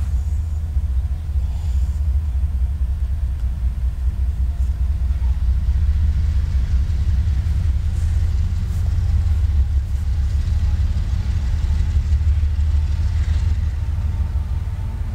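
Steady low rumble of a CSX GE CW44AC diesel-electric locomotive working as it pulls a local freight train.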